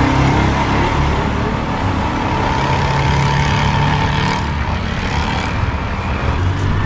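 A motor vehicle's engine running close by in the street: a steady, loud drone with a faint whine over the first few seconds.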